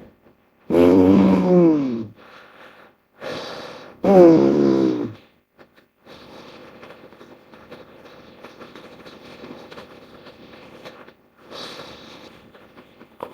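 Animal-style calls made from hippopotamus and bear sound effects: two loud calls, each about a second and a half long and falling in pitch, with a short rough burst between them, then several seconds of a quieter, steady rough noise.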